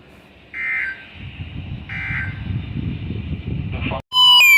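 Emergency Alert System end-of-message data bursts: two short warbling digital bursts about a second and a half apart over a low static hiss, closing the spoken marine warning. Near the end a loud steady tone near 1 kHz cuts in, with falling sweeps above it.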